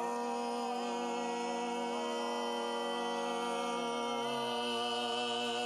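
Male barbershop quartet singing a cappella, holding the song's final chord as one long sustained chord, with a lower voice moving about four seconds in.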